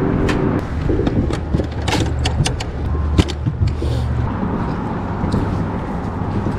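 Steady rumble of road traffic on the highway bridge overhead, with several sharp clicks and taps in the first few seconds.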